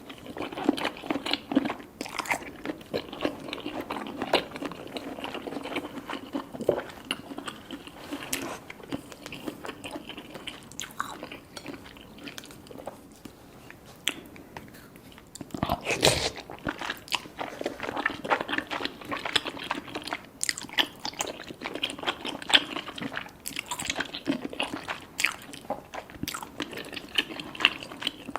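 Close-up eating sounds: wet chewing and biting of cheesy rice cakes and fish balls, with many irregular mouth clicks and smacks, easing off for a few seconds midway before a loud bite.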